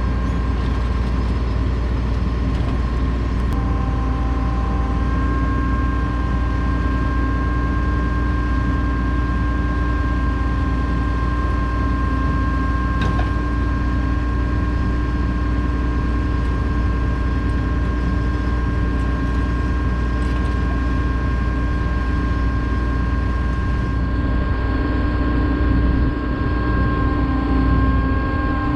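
John Deere 9400 combine running steadily: a deep, even diesel drone with a steady whine held above it.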